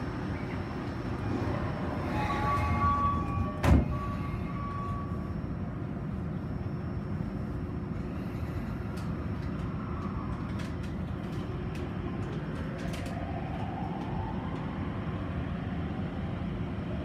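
Inside a Toei Shinjuku Line subway car: short tones sound, then the doors shut with a sharp thud about three and a half seconds in. The train then runs on with a steady rumble, and a rising motor whine near the end as it accelerates.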